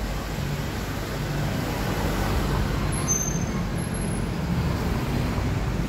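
Street traffic: a motor vehicle running close by, a steady low rumble, with a few brief high-pitched squeals about three seconds in.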